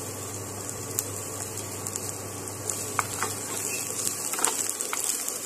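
Chopped garlic sizzling in a little oil in a stainless steel pan over low heat, with a few sharp taps as a wooden spatula stirs it.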